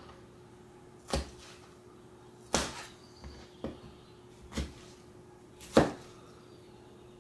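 Kitchen knife chopping a tomato on a plastic cutting board: about five separate knocks of the blade against the board, roughly a second apart, the last one loudest, over a faint steady hum.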